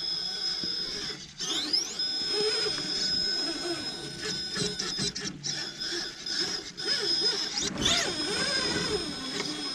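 Electric RC rock crawler's 2000kv brushless motor and geared transmission whining under load, the pitch rising and falling with throttle as it strains to climb a rock step. A couple of quick rising whines stand out, about a second and a half in and near eight seconds.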